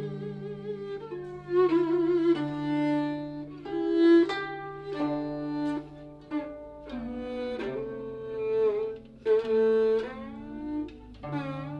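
Guzheng and yehu (coconut-shell fiddle) playing a Cantonese melody together. The yehu's bowed line slides between notes over plucked guzheng notes that ring and fade.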